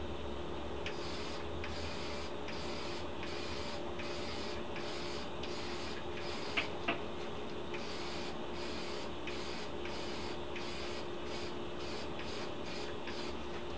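Dupli-Color clear wheel-coating aerosol can hissing in short repeated bursts, one to two a second, as clear coat is sprayed on. Two sharp clicks about halfway through, in a pause between bursts, over a steady low hum.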